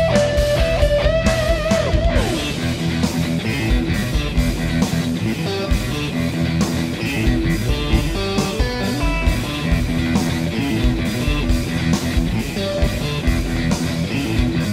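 Amplified Suhr Strat-style electric guitar playing a held, vibrato-laden note that slides down about two seconds in, then a steady rhythmic picked riff.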